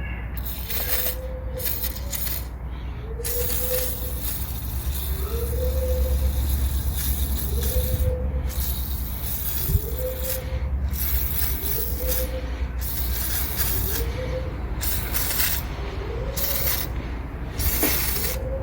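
Spray hissing in long bursts with short breaks, over a steady low hum. A short rising tone repeats about once a second throughout.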